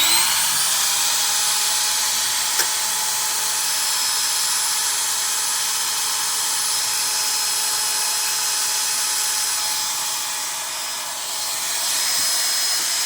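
Electric rotary tool fitted with a rotary file, spinning up and then running at a steady high-pitched whine as it cuts into the rusty sheet-steel rear panel of a car. The sound eases slightly for a moment past the middle before returning to full.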